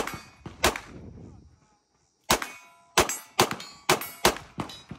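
Semi-automatic CZ pistol shots, each followed by the brief metallic ring of a steel target being hit: two shots, a short pause, then a quick string of about six.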